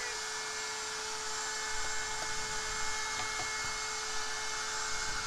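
An electric motor, a shop machine or power tool, running steadily: an even whine with a hiss over it.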